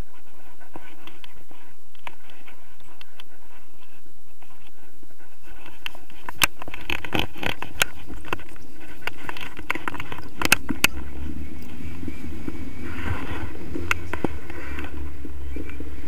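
Tandem paraglider launch heard from a harness-mounted camera: scraping and rustling of harness straps and the camera mount, then, about five seconds in, a low wind rumble on the microphone builds as the pair run and lift off, with several sharp knocks from the camera mount along the way.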